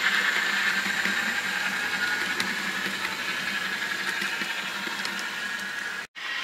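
N-scale model train coaches rolling along the layout track and over a model bridge: a steady rattling rumble of small wheels on rail that slowly fades as the train passes, then cuts out abruptly about six seconds in.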